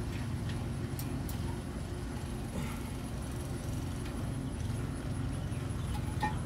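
A few light clicks and knocks of hand tools and metal suspension parts, from work on a car's front lower control arm, over a steady low hum.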